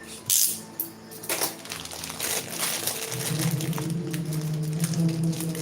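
Plastic packaging crinkling and rustling as a new laptop charger is unwrapped and handled, with a steady low hum starting about three seconds in.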